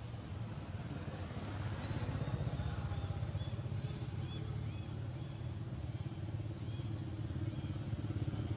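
A small engine running steadily, a low continuous rumble. Faint short high chirps repeat between about two and seven seconds in.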